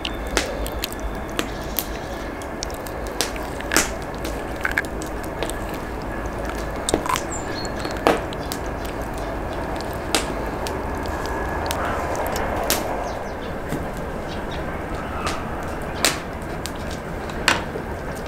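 Hands peeling the membrane off raw lamb testicles on a wooden cutting board: soft wet handling noise with about a dozen scattered sharp clicks, over a steady low background rumble.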